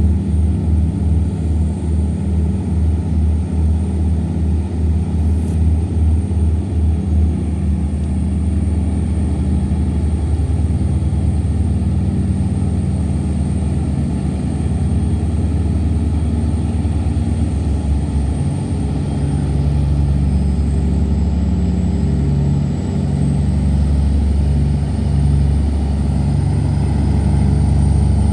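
Heavy diesel engines of river tugboats working under load, towing laden barges against the current. For the first seven seconds they give a deep, even pulsing thump of about three beats a second, the 'boom boom boom' typical of these tugs. After that the sound settles into a steady low drone.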